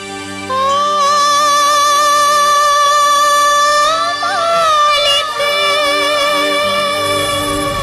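A woman singing one long held note into a microphone over a steady instrumental backing, with a brief ornamented turn about four seconds in before she holds the note again.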